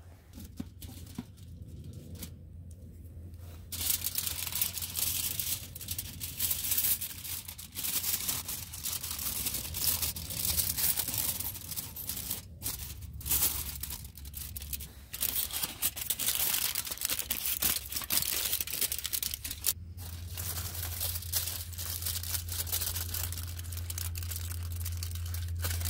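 Aluminium foil crinkling and rustling as a foil packet is handled close by, starting about four seconds in and breaking off briefly twice.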